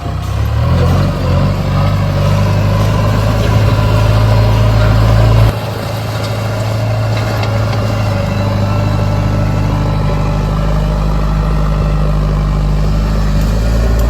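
JCB 3DX backhoe loader's diesel engine running under working load, rising in pitch in the first couple of seconds, then dropping back suddenly about five and a half seconds in and running on steadily.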